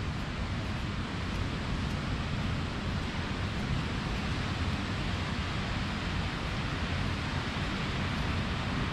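Steady rushing noise of sea surf and wind, even throughout with no distinct events.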